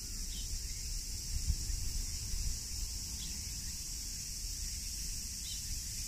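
Cicadas calling in a steady, unbroken high-pitched chorus, with a low rumble underneath.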